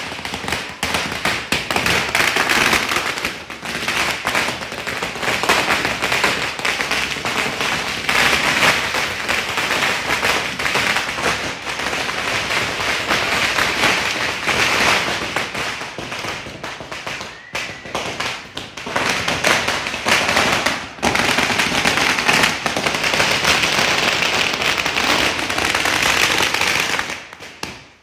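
A long string of firecrackers going off on the ground: a rapid, near-continuous rattle of sharp bangs that keeps up for almost half a minute. It dips briefly about 17 and 21 seconds in, then stops just before the end.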